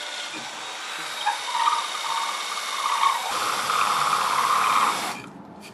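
Hitachi 18-volt cordless drill running a drill-saw bit into a 3/4-inch board: a steady motor whine, joined about a second in by the rough grinding of the bit chewing through the wood. The grinding gets louder, then the drill stops about five seconds in.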